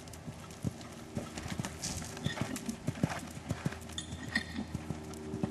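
Hoofbeats of a grey horse cantering on a sand arena, a run of uneven thuds several times a second.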